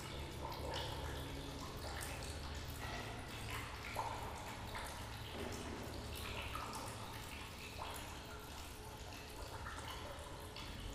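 Water dripping in scattered, irregular drops over a low steady hum, while the last held note of the music fades out in the first couple of seconds.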